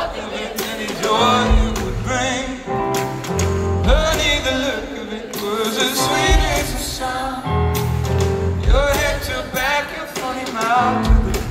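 Live band music with a man singing lead into a microphone over bass notes and regular drum hits, heard from the audience in a theatre.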